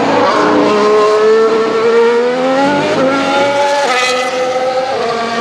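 Open-wheel racing car engine accelerating, its pitch climbing steadily, then quick gear changes about three and four seconds in.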